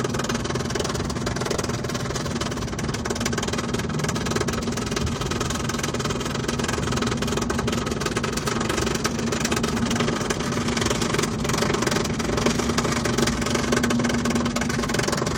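Interior noise of a BMW 328i while driving: engine and road noise with a steady hum, somewhat louder near the end. Somewhere in it is a strange noise coming from behind the dashboard.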